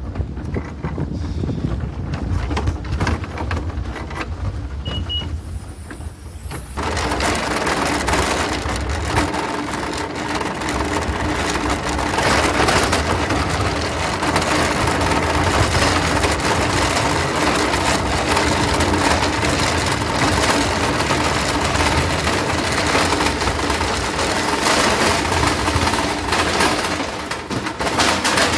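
Low vehicle rumble, then about seven seconds in an abrupt change to a louder, steady, dense background noise with a faint steady hum running through it.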